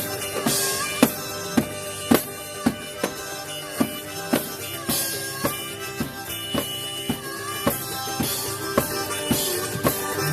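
One-man band playing an instrumental break in a country tune: a harmonica solo over acoustic guitar, with drums worn on the player's back keeping a steady beat of about two hits a second.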